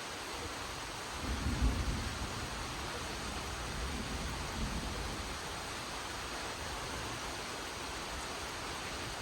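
Steady rain, with a low rumble of thunder rolling in about a second in and fading away over the next few seconds.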